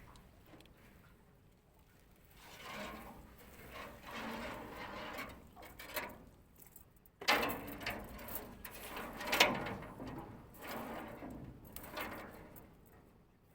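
Irregular splashing and knocking as a fishing net is worked at the water, with a sudden loud splash about seven seconds in and the loudest one about two seconds later.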